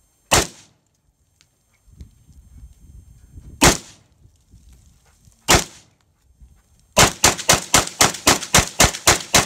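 Yugoslavian M70AB2 underfolder AK-47 in 7.62×39mm firing. Three single shots a couple of seconds apart come first, then a rapid string of about a dozen shots in under three seconds.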